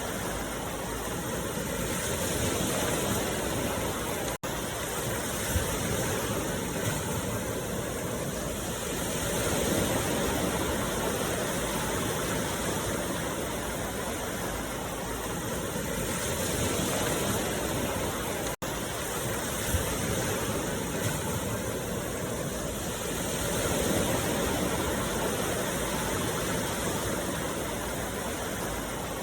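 Meditation track of steady rushing noise that swells and eases about every seven seconds, cutting out for an instant twice.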